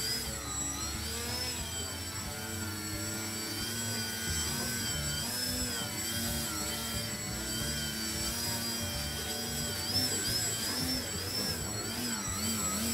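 Electric motor and propeller of a foam 3D RC plane hovering nose-up, the whine rising and falling in pitch as the throttle is worked to hold the hover.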